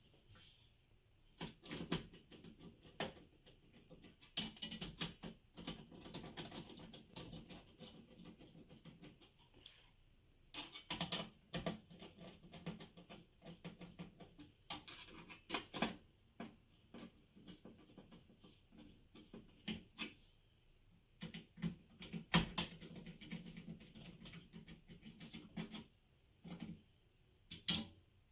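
Hands working on the inside of a server: scattered clicks, taps and light scraping of small metal and plastic parts, with a few sharper knocks.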